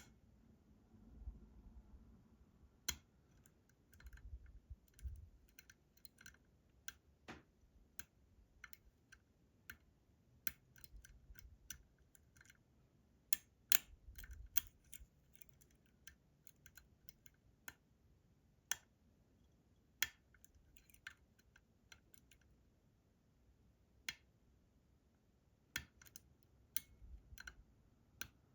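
Irregular small metallic clicks and ticks from a lock pick and tension tool working the pins and sidebar of a Robur 2391 safe-deposit lock cylinder, with a few soft low thumps as the lock is handled.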